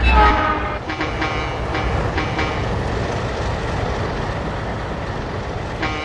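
A passing train's locomotive horn sounds and drops in pitch right at the start, then the locomotive bell rings in repeated strokes over the steady rumble of the train. The bell fades into the rumble and starts again near the end.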